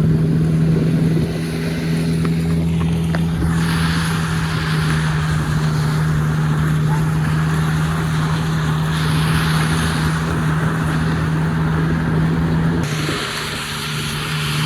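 Car engine running at a steady, unchanging pitch while towing a canoe through a donut. A loud rushing noise comes in about three and a half seconds in and cuts off suddenly about two seconds before the end.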